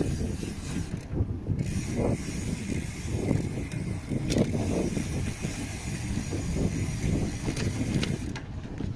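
Wind rumbling on the microphone while riding, with light mechanical clicking and rattling; a steady hiss comes in about a second and a half in and drops out near the end.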